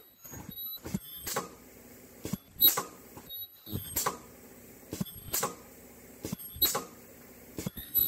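Pneumatic ultrasonic welding machine cycling about once every 1.3 seconds as N95 masks are welded: each stroke a sharp clack of the air cylinder with a brief high-pitched tone and a short hiss of air.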